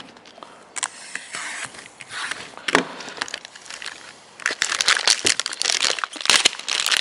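Packaging crinkling and rustling as it is handled and unwrapped by hand, with scattered sharp clicks. It grows busier and louder in the second half.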